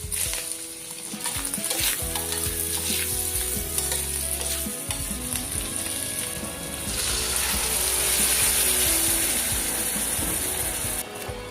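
Food sizzling in a hot pan, with a spatula clattering and scraping as it is stirred. The sizzle grows louder in the second half, then cuts off sharply near the end.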